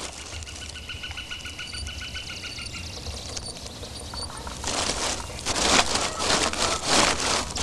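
A bird trills rapidly for a couple of seconds, with a few faint high chirps after it. Then, from about five seconds in and louder, footsteps crunch and rustle through dry brush and dead leaves.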